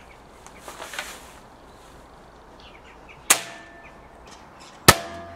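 SMK QB78 CO2 air rifle being readied and fired, its CO2 chilled to freezing. There is some handling around a second in, then a sharp clack about three seconds in, and near the end the loudest crack, the shot, followed by a brief metallic ring.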